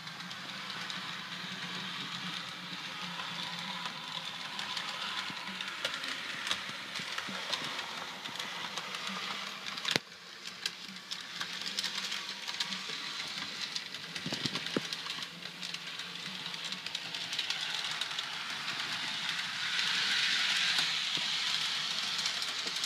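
Walthers HO scale F40PH model diesel locomotive running along the layout: the steady whirr of its motor and the hiss and rattle of wheels on the rails, with many small clicks over the track. There is a sharp click about ten seconds in, and the running gets louder near the end.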